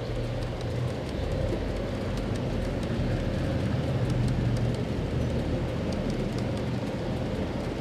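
Steel-wheeled G scale freight cars of a long model train rolling past on garden railway track: a steady rumble with many light clicks.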